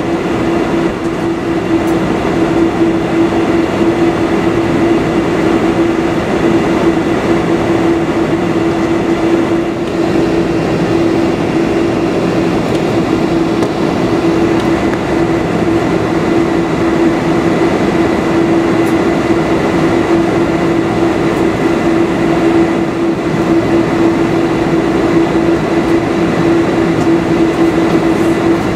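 Boeing 747-400's turbofan engines running at idle, heard from inside the cabin as the jet taxis: a loud, steady drone with a constant low tone.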